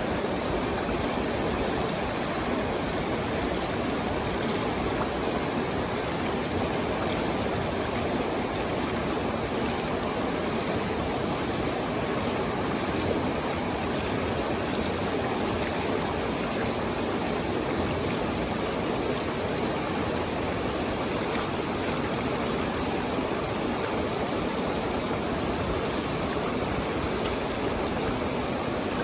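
Stream water flowing, a steady, even rushing that does not change.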